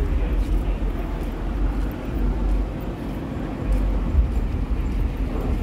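Outdoor car-show ambience: a steady low rumble of vehicle and crowd noise, with a few faint clicks.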